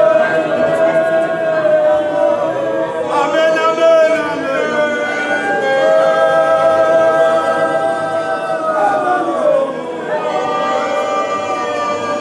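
A group of voices singing together in harmony without instruments, in long held notes.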